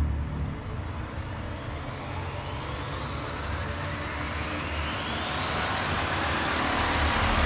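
A rising white-noise sweep, the build-up riser of an electronic music track, climbing steadily in pitch and growing louder while the low beat thins out beneath it.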